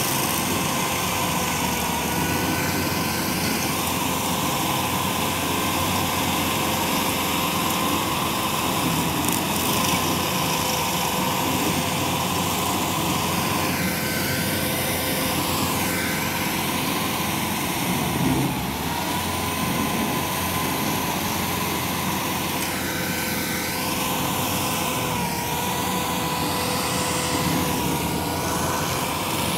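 Tracked stump grinder's engine running at high speed while its cutter wheel grinds into a tree stump: a steady engine whine over a continuous grinding noise. The pitch dips briefly a couple of times as the wheel bites into the wood, then recovers.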